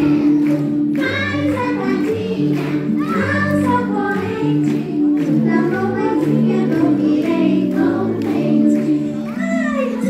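A song with a steady, stepping bass line and several voices singing the melody.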